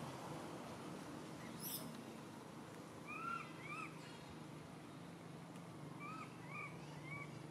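Baby macaque crying: short, high, arched squeaks, two about three seconds in and three more near the end.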